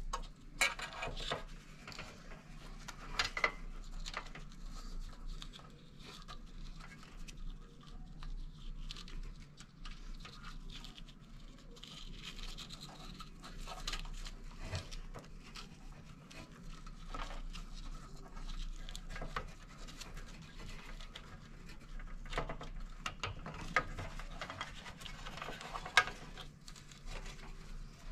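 Gloved hands handling wire leads inside a sheet-metal heater housing: irregular scratching and rubbing with scattered small clicks as quick-connect terminals are worked off and onto the high-temperature limit's terminals, one sharper click near the end.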